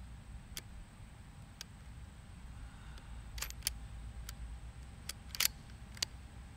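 A scatter of short, sharp clicks from a Mossberg MVP LC bolt-action rifle being handled, the loudest about five and a half seconds in, over a low steady rumble. No shot is fired.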